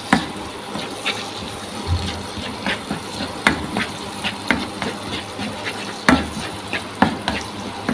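Minced garlic and shallots sizzling in hot oil in a nonstick wok, with a wooden spatula scraping and tapping against the pan in irregular clicks as they are stirred.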